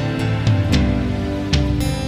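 Instrumental background music with a steady pulse of note onsets.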